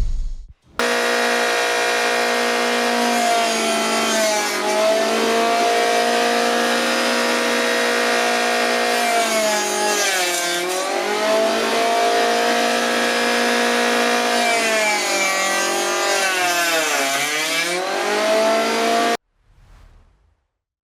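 Electric hand planer's motor running with a steady whine that starts and stops abruptly. Its pitch drops and recovers twice, about ten seconds in and near the end, as the motor slows under load during a cut.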